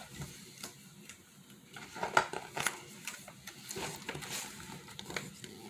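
Paper pages of a picture book being turned and the book handled: a run of short rustles and small taps, the loudest a little after two seconds in.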